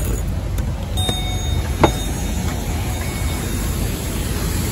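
Steady low rumble of outdoor machinery or wind noise, with a single sharp click about two seconds in.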